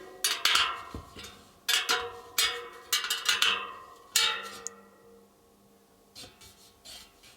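Steel spokes of a tensioned mountain bike wheel pinging: a string of sharp metallic pings, each ringing briefly and fading, several in the first half and a few fainter ones near the end. This is the sound of spokes settling into the hub holes as the wheel is worked and trued.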